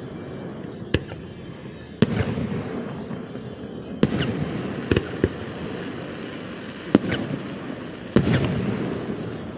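Fireworks display: about seven sharp bangs of aerial shells bursting, one to two seconds apart, the louder ones trailing off in a rumble.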